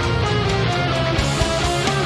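Progressive metal instrumental: electric guitar playing a melodic line of short held notes over bass and drums.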